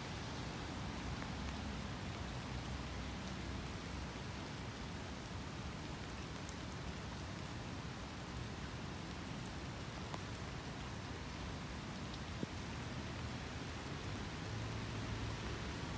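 Rain falling steadily, an even hiss, with a couple of single drop taps.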